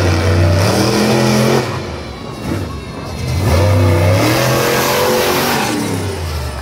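Monster truck engine revving hard as the truck is driven across the dirt arena, its pitch rising and falling with the throttle. It is loud at first, eases off for a moment about two seconds in, then revs loud again.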